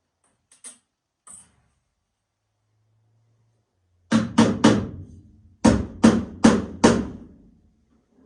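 Hammer blows on a furnace part stuck on with silicone, struck to knock it loose. A few light taps come first, then three hard blows in quick succession about four seconds in and four more a second later, each with a short low ring.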